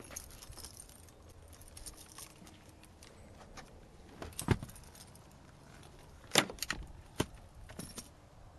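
Keys jangling and rattling, with a few sharp clicks: one about halfway, then a quick cluster near the end.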